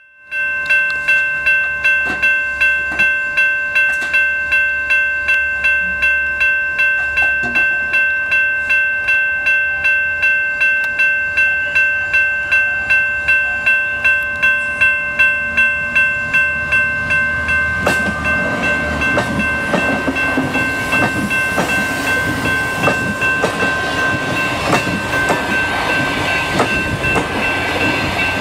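A level-crossing warning bell rings steadily, about two strokes a second. About eighteen seconds in, a passenger train reaches the crossing and the rumble and clatter of its coaches passing takes over, with the bell still ringing under it.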